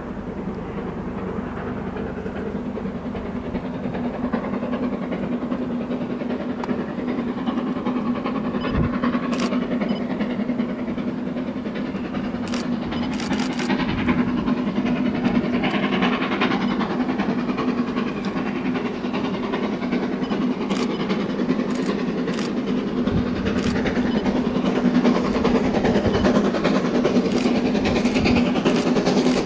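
GWR Castle class four-cylinder 4-6-0 steam locomotive 7029 Clun Castle working hard up a steep gradient. Its exhaust grows steadily louder as it approaches.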